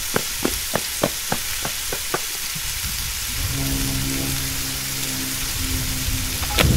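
Quick running footsteps on pavement, about three a second, over a steady hiss, fading out about two seconds in. From about three and a half seconds a steady low hum of a motorcycle engine idling.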